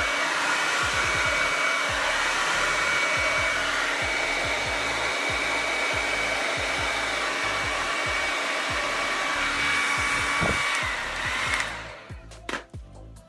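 Kiss 1875 Pro tourmaline ceramic hair dryer running with a steady rush of air and a thin high whine. It is switched off about twelve seconds in and dies away, followed by a few light clicks.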